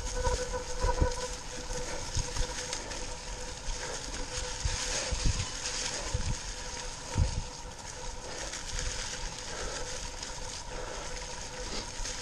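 2018 Giant Stance 2 mountain bike rolling over dry leaf-covered dirt singletrack: tyres crunching through the leaves, with irregular knocks from the bike over bumps, the strongest about five and seven seconds in.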